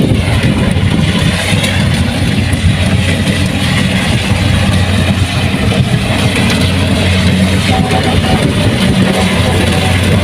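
Kubota combine harvester's engine running steadily, a loud, even mechanical drone with a constant low hum.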